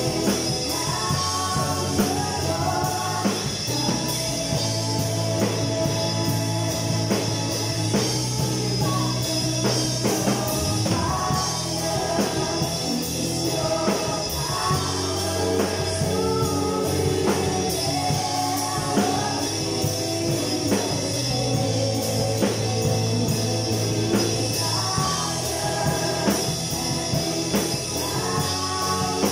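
A live band playing a worship song: a singer's voice over electric guitar, electric bass, keyboard and a drum kit keeping a steady beat.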